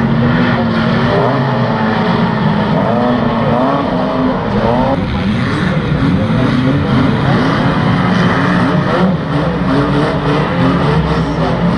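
Engines of several pre-1980 classic banger-racing cars running and revving together, their pitches rising and falling and overlapping as the cars push and shunt one another.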